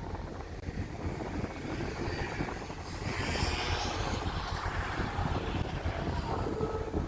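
Steady low rumble of the Diagoras car ferry's engines, with wind noise on the microphone swelling about three seconds in.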